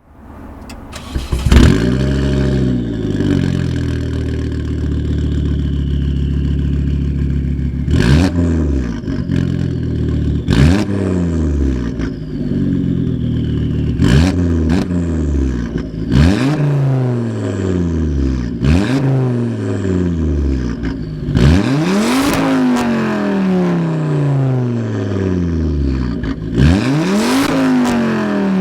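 Volvo C30 T5's turbocharged 2.5-litre inline-five starting, with a brief flare in revs before settling to a steady idle. From about eight seconds in, the engine is blipped about seven times: each time the revs jump sharply and then fall back slowly to idle.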